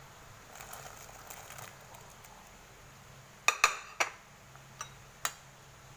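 Diced carrots and bell pepper sliding off a plate into a stainless steel pot of boiling broth, followed by a few sharp clinks against the pot, three close together and two fainter ones shortly after.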